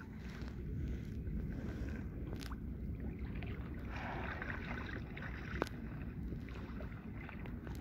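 Water lapping and sloshing against a kayak hull, with low wind rumble on the microphone. A short hiss about four seconds in, and two sharp clicks, one about two seconds in and a louder one a little after five seconds.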